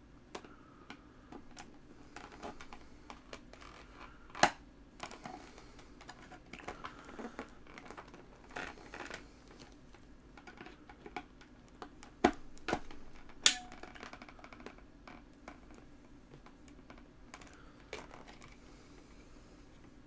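Flathead screwdriver prying at the seam of an external hard drive's plastic enclosure: scattered small clicks and scrapes, with three louder sharp clicks, one about four seconds in and two more around twelve to thirteen seconds in.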